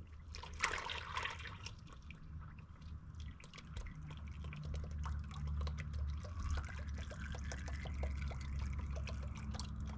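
Used engine oil draining from the sump of a 1944 Ford 2N into a drain pan: a steady pouring trickle with many small splashes and drips.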